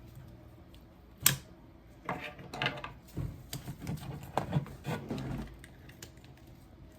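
Kitchen scissors snipping and pulling tangled braided fishing line out of a baitcasting reel's spool: a sharp click a little over a second in, then irregular clicks and scrapes for a few seconds.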